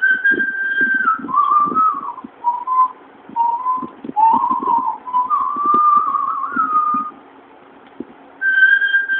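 A person whistling a melody: one clear note line stepping up and down in short phrases. It breaks off about seven seconds in and starts again about a second later.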